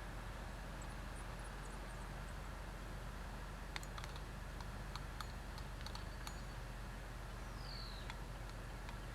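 A scatter of light clicks and ticks through the middle, over a steady low hum, with a short falling high whistle near the end.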